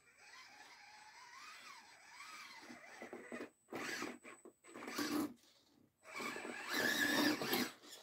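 RGT Bowler 1/10-scale RC crawler's electric motor and gearbox whining as it drives, the pitch rising and falling with the throttle, then louder in two short pushes, the loudest near the end.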